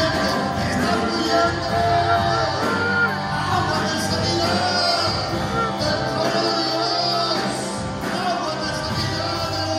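Live worship band playing, with electric guitar, electric bass and keyboard under a sung melody.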